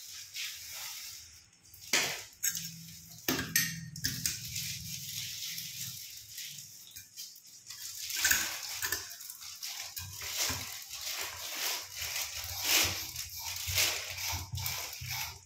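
Irregular clicks, scrapes and clinks of a sink strainer fitting being worked and turned in the drain hole of a stainless steel kitchen sink.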